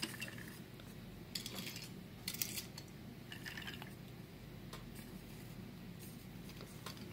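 Faint clicks and scrapes of small toy trains being handled and pushed across a towel-covered table, in a few short clusters, the sharpest about two and a half seconds in.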